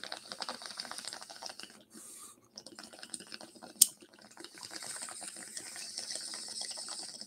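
Water bubbling in a bong as smoke is drawn through it, a dense rapid crackling gurgle, with one sharp click about four seconds in.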